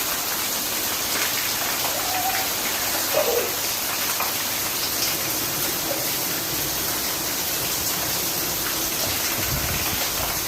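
Steady rain falling and pattering on the ground and surfaces, an even hiss at a constant level, with a faint brief child's voice a few seconds in.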